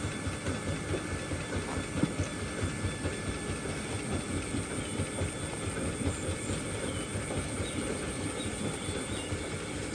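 Steady rushing noise of a motor pump running and discharging water, with small fish flapping and pattering as a cast net is shaken out over a woven plastic sack.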